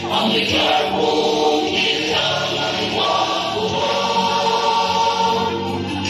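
Background music: a song sung by a choir of voices.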